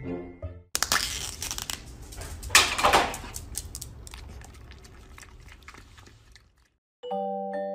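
Foil lid being peeled off a plastic yogurt cup, crinkling and tearing, loudest about two and a half seconds in. It is followed by a dog licking yogurt from the cup, fading away. Light mallet-percussion music starts near the end.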